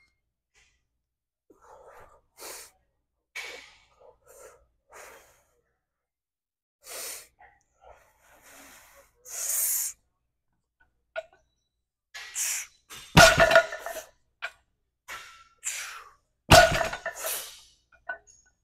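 Short, sharp breaths and sniffs of a lifter bracing over a loaded barbell, then the bar's plates are set down on the floor between deadlift reps with a loud ringing clank, twice, about three seconds apart.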